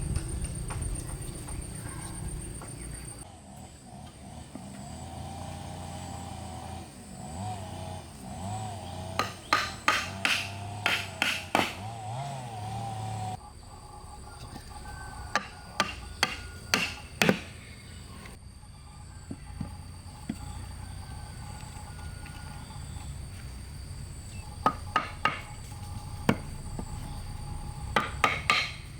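Short runs of sharp tool blows striking wood, several quick strikes in each run.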